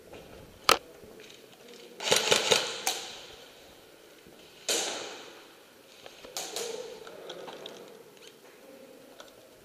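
Airsoft guns firing in a large echoing hall: a single sharp crack, then a quick run of cracks about two seconds in. A louder crack near five seconds fades away slowly, and a few more follow about a second and a half later.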